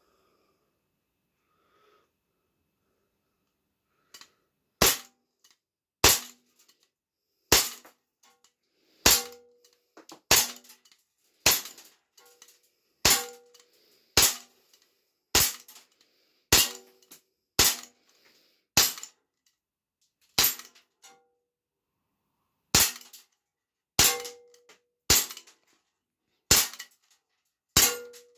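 Umarex Glock 19X 4.5 mm CO2 blowback BB pistol firing about eighteen single shots, each a sharp crack, one every second to second and a half, starting about five seconds in. Several shots are followed by a short ring.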